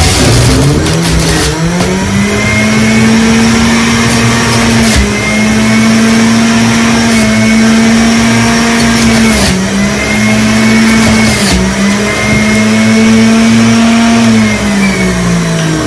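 Electric kitchen juicer running while juicing pomegranate, beetroot, ginger and mint. The motor whine rises as it spins up, holds steady with a few brief dips in pitch as it takes the load, and winds down near the end.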